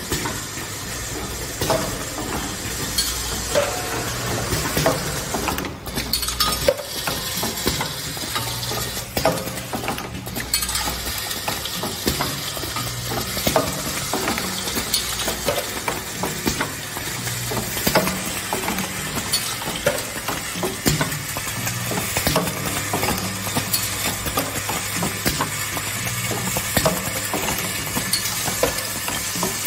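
Automatic O-ring assembly machine running, its vibratory bowl feeder and linear feed track rattling small brass valve cartridge parts. The result is a continuous dense clatter, full of small clicks, over a steady low hum.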